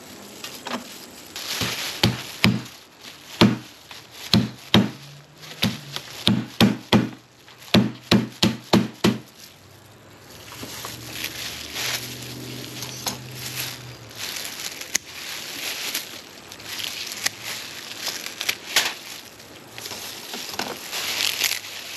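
Knife chopping on a cutting board: about fifteen sharp strokes in the first nine seconds, then softer rustling and handling sounds.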